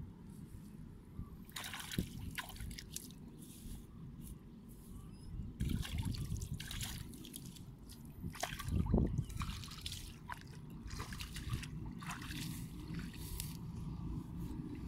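Water trickling and splashing as wet straw and mud are handled in a shallow muddy ditch, in small irregular splashes with a louder splash about nine seconds in.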